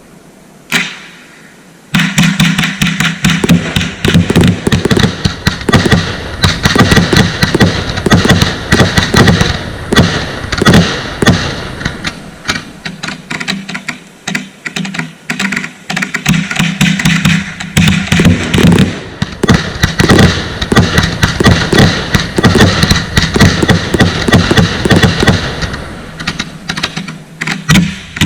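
Consumer fireworks: a single pop, then from about two seconds in a dense, continuous barrage of rapid cracks and bangs.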